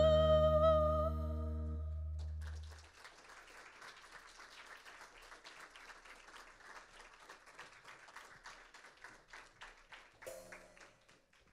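A song ends: the singer holds a last note with vibrato over the band's sustained chord, which fades out about three seconds in. Then light applause follows.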